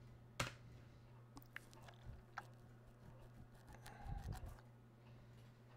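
Faint, sparse computer keyboard keystrokes, a sharper click about half a second in and a few softer ones after, over a low steady hum; a soft low thump near the end.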